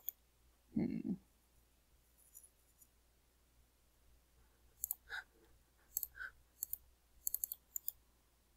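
Computer mouse clicking: a few separate clicks, then a quick run of clicks in the second half.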